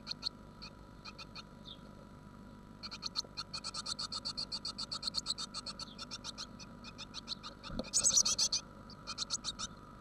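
Blue tit nestlings begging: rapid strings of short, high-pitched calls, about ten a second, in a nearly continuous run from about three seconds in, with the loudest burst about eight seconds in.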